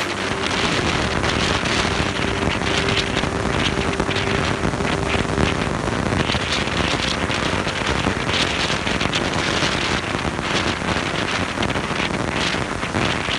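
Loud, steady rushing of white water, as from a canyon stream or waterfall.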